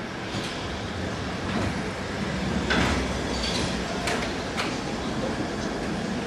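A Lisbon Ascensor da Bica funicular car climbing the street on its rails, with a steady rumble and several sharp metallic clanks from the car and track.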